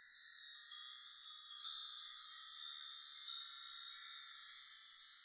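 High, shimmering wash of chimes like wind chimes in the closing soundtrack music, with no low notes under it.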